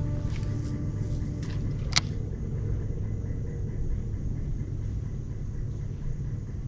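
Steady low rumble, with one sharp click about two seconds in.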